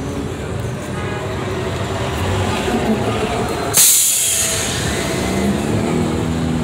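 Vehicle engines running steadily, with a sudden loud hiss about four seconds in that fades over a second.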